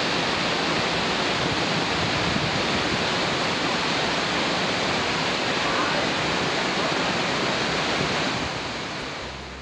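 Rain-swollen waterfall roaring down a hillside, a steady dense rush of falling water that fades out near the end.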